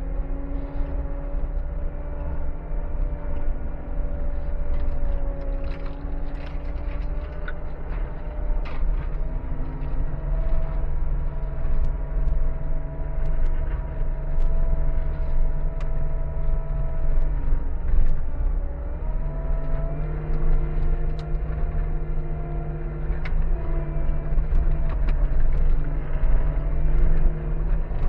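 Skid steer engine and hydraulic drive running as the machine travels, heard from inside the cab: a steady rumble with a whine that steps up in pitch about ten seconds in and again near twenty seconds, with scattered light rattles and clicks.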